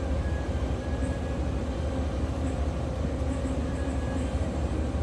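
A large diesel engine running at a steady speed, a deep even rumble with a steady hum above it.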